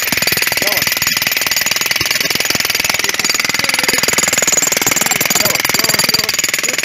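Rapid, steady hammering of a powered tool, with no break.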